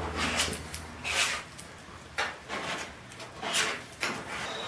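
A spreader squeezing and scraping thick stainless-steel-filled body filler across a car's steel roof panel, in several separate rasping strokes about a second apart.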